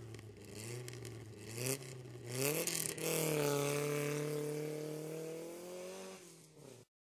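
Race car engine sound effect: the revs climb in several short rises, then hold a high note that slowly sags and cuts off suddenly near the end.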